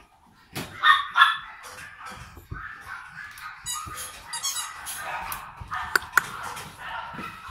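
French bulldog puppy giving two short, loud barks about a second in, then scuffling and rustling about on a fleece mat as it plays, with scattered clicks.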